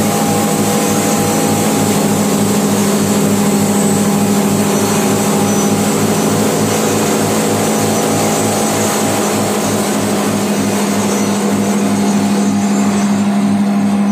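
Industrial spice pulverizer with its suction blower, belt-driven by an electric motor, running steadily: a loud, even hum with a low throb pulsing a couple of times a second underneath.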